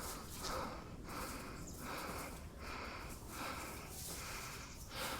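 A person breathing hard in quick, even puffs, about three breaths every two seconds.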